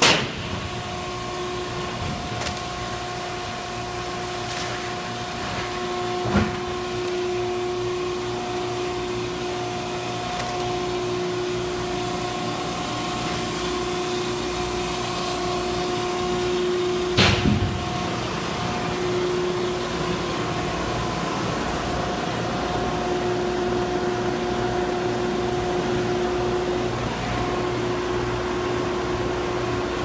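American Baler 8043-H10-150 horizontal baler running: its electric motor and hydraulic pump give a steady hum with a whine. A few sharp knocks come through, the loudest about 17 seconds in.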